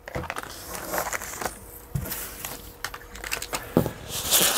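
Unboxing packaging being handled: scattered rustles and light knocks of paper and cardboard, then a louder crinkling of plastic wrap about four seconds in.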